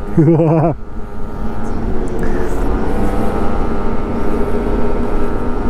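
Motor scooter engine running at a steady pace while riding, a level drone over a constant low rumble of wind and road noise.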